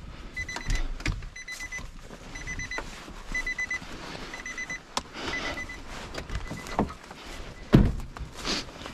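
Nissan truck's warning chime beeping about once a second while the driver's door stands open, stopping about five and a half seconds in. A loud thump follows near the end.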